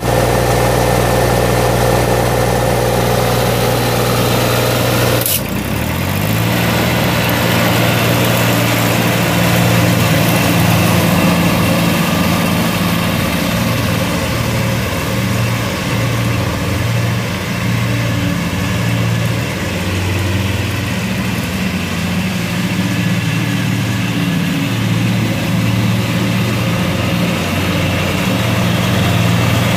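Shibaura 1,131cc diesel engine of a Hustler Z zero-turn mower running steadily at idle. About five seconds in there is a sharp click, after which the engine note sits a little higher and wavers slightly.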